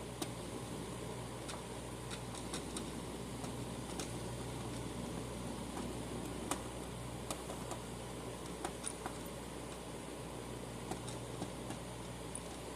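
Scattered light clicks and taps at irregular moments from small hardware being handled during mounting work, over a steady low background hum.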